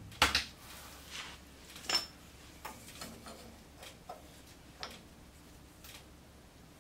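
Scattered small metal clinks and knocks as a steel bracket plate and bushing are handled against a truck's front suspension arm, the sharpest one just after the start and another about two seconds in.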